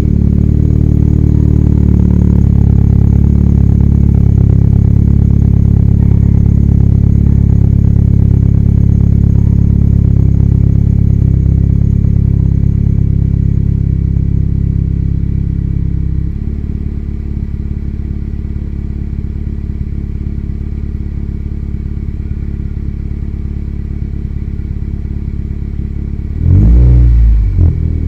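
Honda City engine idling through a full aftermarket exhaust: Hotpipes headers, 1.75-inch midpipe, 15-inch resonator and Spoon N1 muffler. Just after starting it idles high and steady, then drops to a lower idle about halfway through. Near the end there is one short rev.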